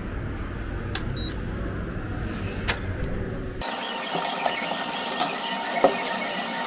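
Handling noise and a few sharp clicks at a gym's entrance door. About halfway through, the sound cuts to the room tone of a gym floor, broken by several sharp clicks and knocks.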